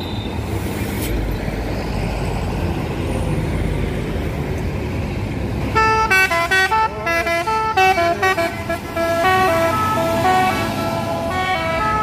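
A tour bus's engine rumbles as it pulls away. About six seconds in, its telolet basuri musical horn plays a quick melody of stepping, flute-like notes.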